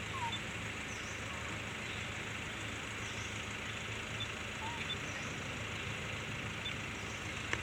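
Steady outdoor background noise, with faint short chirps about every two seconds and a single click near the end.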